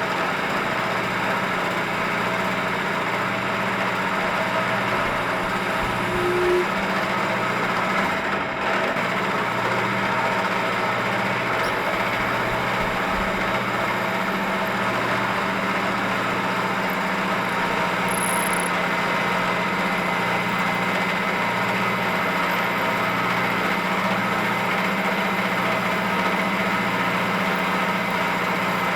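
Drilling machine's spindle running steadily with a constant hum and whine while a small hole is center drilled and drilled through a steel bushing.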